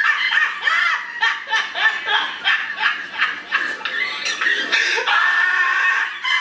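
A person laughing hard in a run of high-pitched, breathy bursts, a few a second, with a longer drawn-out high squeal about five seconds in.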